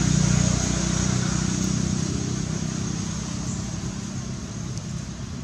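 A motor vehicle's engine running with a steady low hum, loudest at the start and slowly fading away as it moves off.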